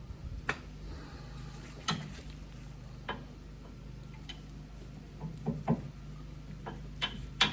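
Scattered light clicks and knocks, about nine of them at uneven intervals, as sway bar parts are handled and test-fitted into their mounting, over a steady low hum.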